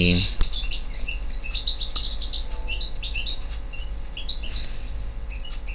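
Small birds chirping in quick, irregular short high chirps over a steady low hum.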